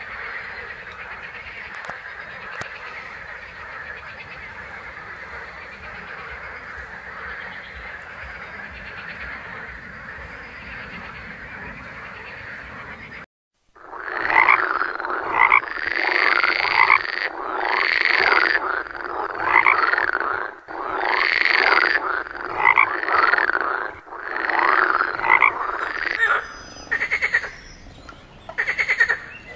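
Frogs calling: a dense, steady chorus for the first half. After a sudden break about halfway through come loud, close croaks, separate calls one to two seconds apart, each rising and falling in pitch.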